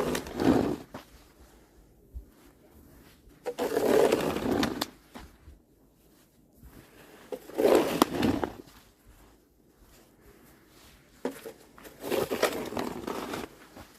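Snow shovel scraping through snow, three long strokes about four seconds apart.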